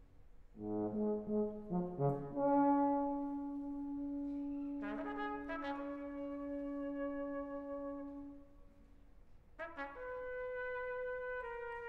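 Brass of a concert wind band playing. A few low notes step upward, then settle into one long held note with higher notes joining about halfway through. After a short lull, a new sustained chord enters near the end.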